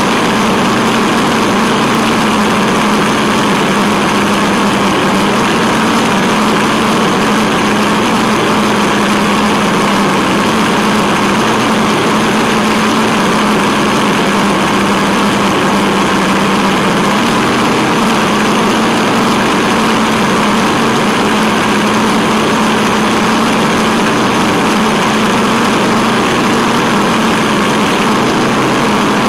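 Tamiya Wild Willy 2 RC truck driving, heard from its onboard camera: a steady whine and hum of its electric motor and gearbox, with tyre noise, holding an even pace throughout.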